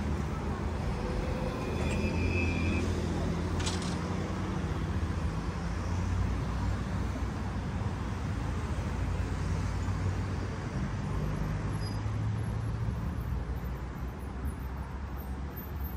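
City street traffic: car engines running and tyres on the road, a steady low rumble that eases off near the end, with a few brief voices of passersby early on.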